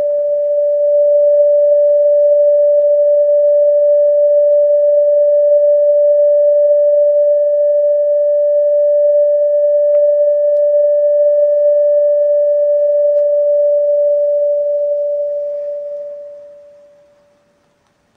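Test-tube thermoacoustic engine singing: a steady, pure mid-pitched tone with faint higher overtones, driven by the temperature difference across the flame-heated steel wool in the glass tube. The tone fades away to silence about sixteen seconds in.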